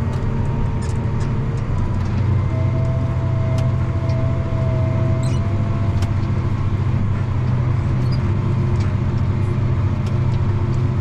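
Tractor engine running steadily under load while pulling a field cultivator through the soil, picking up a little about two seconds in, with occasional sharp clicks and rattles.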